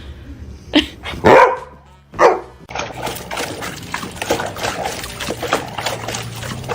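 A dog barks three times, the middle bark the loudest. After that comes a busy run of many small quick clicks and scratchy noise.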